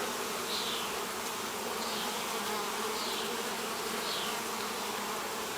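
Honeybees buzzing steadily around an open hive as its frames are lifted and inspected, a continuous even hum.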